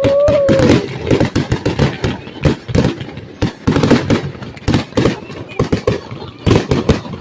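Fireworks going off in quick succession: a dense run of bangs and crackling reports, several a second.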